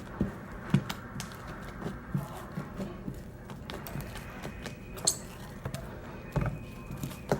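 Fluffy slime of glue and shaving cream being mixed, with irregular soft thumps and short clicks.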